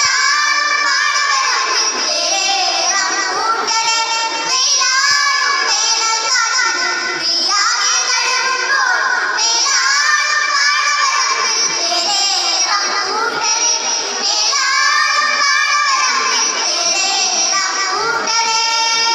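A group of children singing a Malayalam group song (sangha ganam) together into microphones, in continuous phrases.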